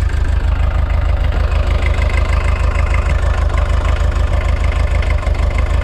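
VW T3 van's rear-mounted engine idling steadily during an engine check, heard up close at the open engine bay. It is an even low rumble.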